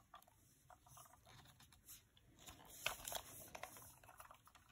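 Faint handling of a plastic LEGO minifigure torch: scattered small clicks and rubbing, with one sharper click about three seconds in.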